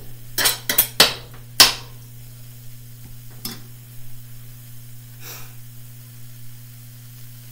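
Metal spoon clinking and scraping against a stainless steel skillet while stirring shrimp and couscous, with about five sharp clinks in the first two seconds. After that there are only a couple of faint knocks over a low steady hum.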